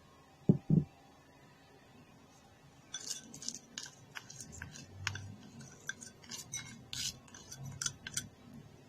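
Two dull thumps, then a string of light clinks and scrapes of a spoon against a mixing bowl as stearic acid and beeswax are spooned into it.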